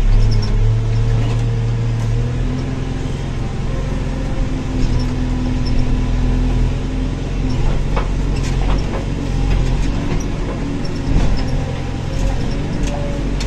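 Backhoe loader's diesel engine running steadily under load while driving over a rough dirt track, heard from inside the cab, with a few brief clunks and rattles from the machine.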